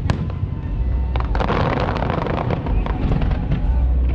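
Aerial fireworks bursting in a rapid barrage of bangs and crackles over a constant deep rumble, with a dense crackling stretch about a second and a half in.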